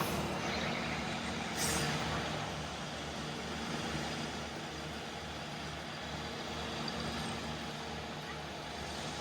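Diesel engine of rail maintenance-of-way machinery running steadily, with a short hiss of released air about a second and a half in.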